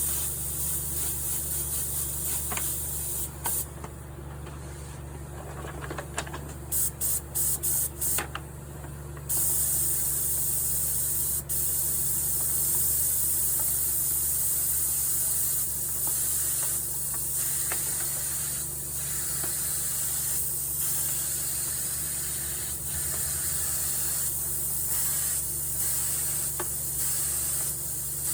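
Small spray gun hissing as it lays a coat of adhesive on a piano soundboard. A few short bursts come first, then from about nine seconds in a long, nearly continuous spray with brief breaks, over a steady low hum.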